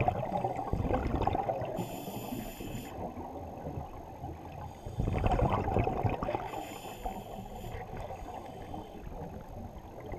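Scuba diver breathing through an open-circuit regulator underwater: twice, about five seconds apart, a rush of exhaled bubbles, each followed by the hiss of an inhalation through the regulator.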